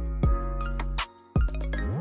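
Electronic outro music with a thumping kick beat and sliding synth tones; it cuts out briefly about a second in, then a rising sweep brings it back.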